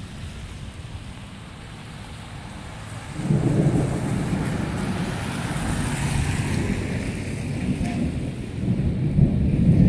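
Thunder rumbling: a low roll that starts suddenly about three seconds in, carries on and swells again near the end. A car's tyres hiss on the wet street midway.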